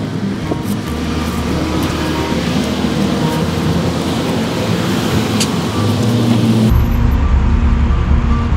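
Background music with long sustained low notes over a steady hiss. About two-thirds of the way through, the hiss cuts off suddenly and the bass shifts, as at an edit.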